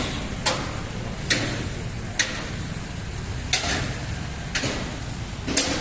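Six sharp clicks or knocks, unevenly spaced about a second apart, over a steady low rumble.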